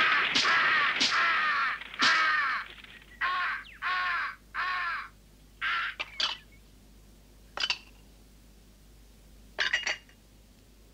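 A crow cawing repeatedly, about six caws in the first five seconds. Then a few short clinks of crockery as dishes are set on a table.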